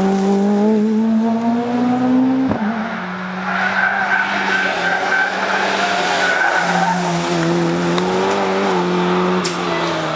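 Rally car engine at high revs, its pitch climbing and then breaking off sharply about two and a half seconds in. Tyres then squeal for a couple of seconds as the car slides through a corner, and the engine note returns for the last few seconds.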